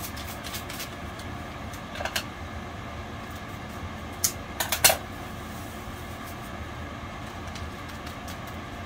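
Scissors snipping open packets of yeast: a couple of sharp snips and crinkles about two seconds in and a louder cluster between four and five seconds in, over a steady background hum.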